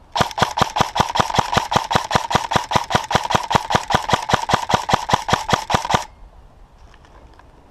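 Airsoft rifle firing one long full-auto burst at about five or six shots a second, with a steady whine under the clicks; it stops abruptly about six seconds in.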